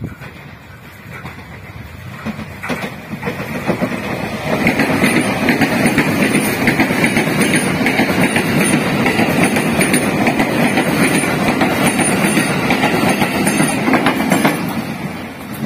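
Tokyo Metro 6000 series electric commuter train running through without stopping, its wheels rumbling on the rails as it passes close by. The sound builds over the first few seconds, stays loud for about ten seconds while the cars go by, then falls away near the end as the last car passes.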